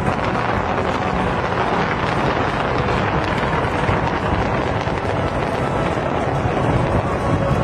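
Fireworks going off in a dense, continuous barrage, heard as a steady loud wash of crackle and rumble.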